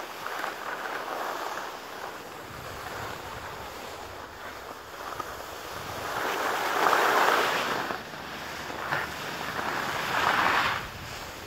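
Skis sliding over packed snow, a steady hiss that swells into louder scrapes twice, in the middle and near the end, with wind on the microphone.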